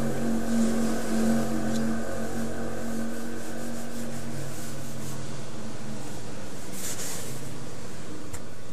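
Cotton ball rubbed back and forth over a sheet of oiled bond paper, a soft scratchy scrubbing that brightens briefly near the end. A steady low hum and background noise sit underneath, and the hum fades after about two seconds.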